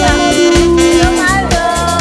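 Music with a steady beat and a melody line, including one held note about half a second in.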